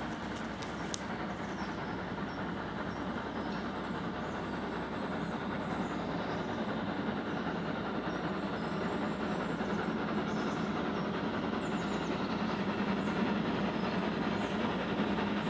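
Train running on the rails with a steady rolling rumble that slowly gets louder, with a sharp click about a second in.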